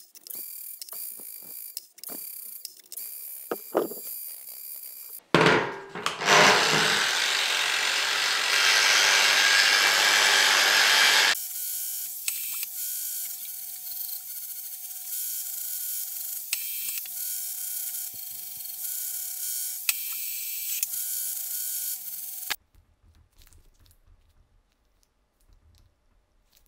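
Clicking mechanical sounds, then an angle grinder with a polishing disc working a steel hammer head clamped in a vise: first a loud, harsh grinding noise for about six seconds, then a steadier whine for about eleven seconds that cuts off abruptly, leaving near quiet.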